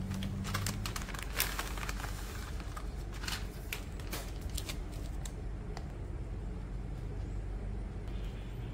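Plastic packaging and foil sachets of a DIY gummy candy kit crinkling and clicking as they are handled, with a dense run of short crackles over the first five seconds or so, then sparser ones. A steady low hum lies under it throughout.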